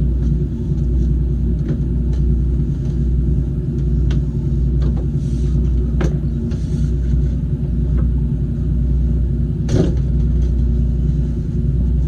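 A motor yacht's engines idling with a steady low rumble. A few light knocks or clicks sound over it, the sharpest near ten seconds in.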